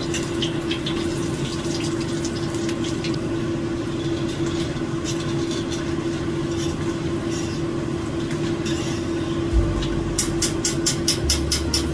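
Banana fritters sizzling in hot oil in a wok over a steady hum, with scattered light clicks of a fork and wire strainer against the pan. Near the end a fast run of sharp ticks with low notes comes in.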